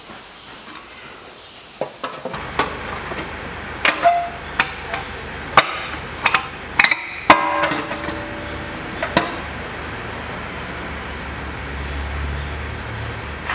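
Sheet-metal exhaust-manifold heat shield being fitted over the manifold by hand: a run of sharp metallic clanks and knocks, some with a brief ring, between about two and nine seconds in. A low steady hum runs beneath from about two seconds on.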